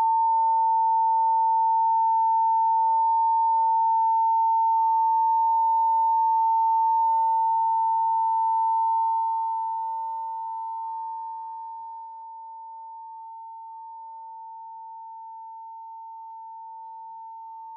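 Censor bleep: a single steady high-pitched tone held without a break, masking a racial slur and the speech around it. It drops to a much lower level between about seven and twelve seconds in.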